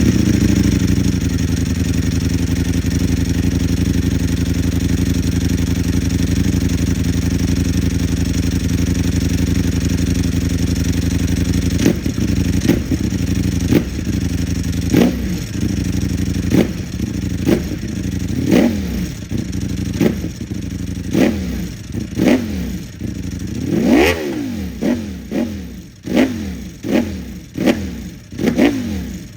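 Ducati Streetfighter V4 SP's V4 engine through an Akrapovic full titanium exhaust, idling just after start-up, the idle settling a little lower over the first seconds. From about twelve seconds in the throttle is blipped again and again, a dozen or so quick revs that come closer together, the highest about two-thirds of the way through.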